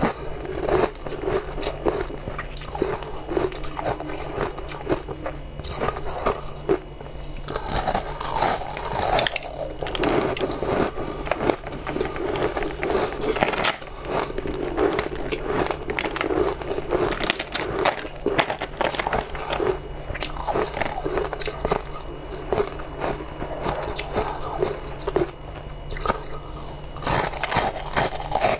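A person biting and chewing chunks of frozen purple ice, with dense, irregular crunching and crackling, over a steady low hum.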